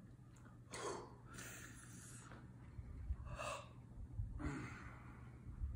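A man breathing hard through the burn of an extremely hot pepper chip: about four sharp, noisy breaths a second or so apart.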